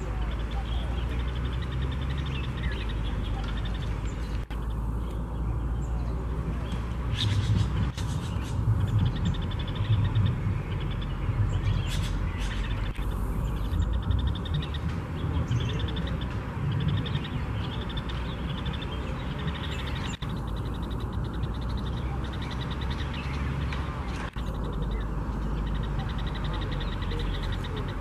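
Birds calling over a steady low background noise, with a fine, fast trill running through it.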